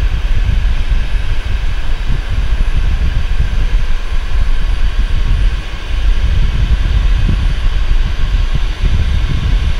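MiG-29's twin RD-33 turbofan jet engines running in flight, heard from a camera mounted outside the fuselage, with a steady high whine over a heavy, uneven rumble of wind buffeting the microphone. The rumble eases briefly about six seconds in.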